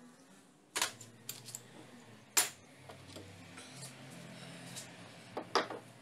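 Sharp metallic clinks and knocks of steel lathe parts being handled: one about a second in, the loudest about halfway through, and a quick pair near the end, with fainter ticks between.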